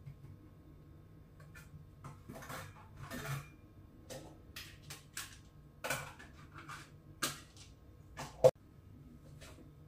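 Kitchen clatter: irregular clinks and knocks of dishes and utensils being handled, with one sharp, loud click about eight and a half seconds in.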